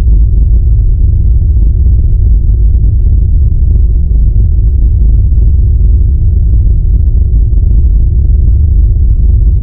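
Trailer sound effect 'Distortion Wave': a loud, steady, distorted low rumble, deep in the bass with almost nothing in the treble and no hits or changes.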